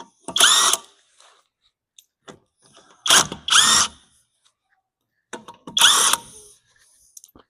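Power tool running in three short bursts, its motor pitch gliding as it spins up and down, undoing a car's wheel nuts, with small metallic clicks between bursts.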